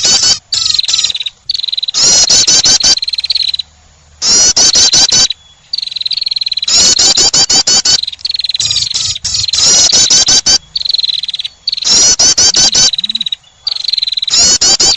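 Prenjak (prinia) lure-call song: loud bursts of rapid, high chirping trills, each about a second long, repeating every couple of seconds.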